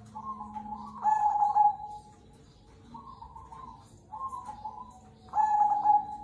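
Zebra dove (perkutut cemani kolbuntet) cooing: a string of short rolling coo phrases. The loudest come about a second in and near the end, with softer ones between.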